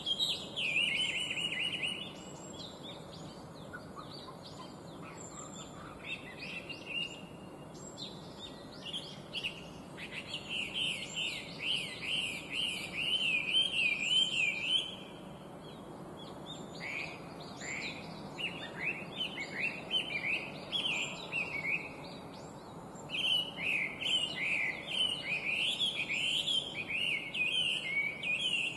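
Chinese hwamei singing: fast runs of repeated rising-and-falling whistled notes in bouts of several seconds, with short pauses between bouts.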